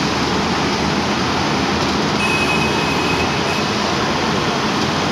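Heavy engine running steadily under a dense, even noise, with a faint high tone for about a second midway.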